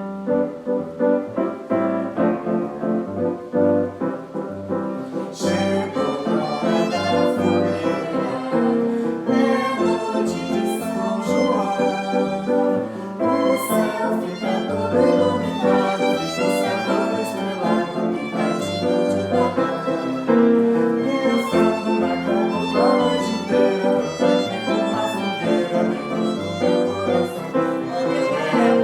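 Instrumental music with fiddle and piano, a fuller accompaniment joining about five seconds in: the introduction of a festa junina song.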